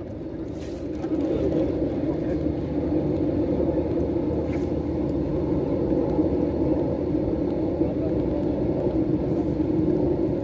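Spinning reel being cranked steadily, a continuous whir, as a cast lure is retrieved.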